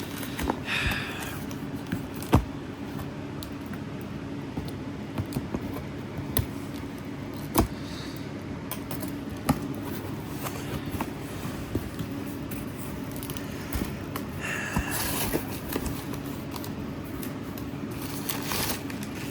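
Speakers and packaging being handled on a table: scattered knocks and clicks, with short scrapes and crinkling of packing material a few times, over a steady low hum.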